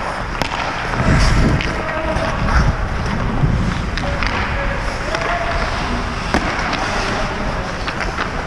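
Ice hockey skates scraping and carving across the ice, with wind rushing over the helmet camera's microphone in uneven swells. Several sharp clacks of sticks and puck cut through.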